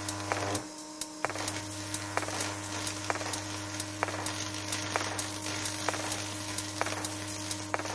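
High-voltage electric arc from a microwave oven transformer burning between a tungsten electrode and a graphite plate: a steady electrical buzz with sizzling crackle and sharp snaps about once a second. The buzz drops out for a moment about half a second in and comes back just after a second, as the arc breaks and re-strikes.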